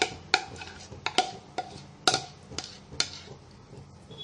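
A utensil clinking and scraping against a bowl as thick cake batter is scooped out into a cake tin: sharp knocks with a short ring, about two a second.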